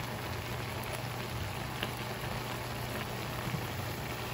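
Shrimp in a garlic and Sprite sauce bubbling and sizzling steadily in a wok, over a low steady hum.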